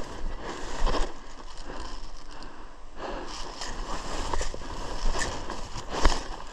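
Rustling and scraping of brush and gear as a player moves through bush, with a couple of sharper knocks, about a second in and near the end.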